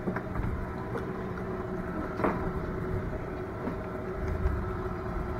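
Steady engine hum with a few light knocks.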